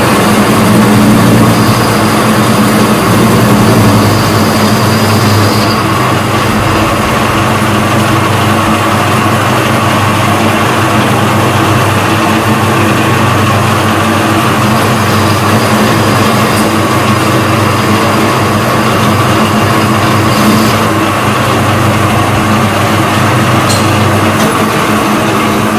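Metal-turning lathe running steadily, its spindle turning a metal workpiece in the chuck, a loud, even machine hum with a thin high whine that comes and goes.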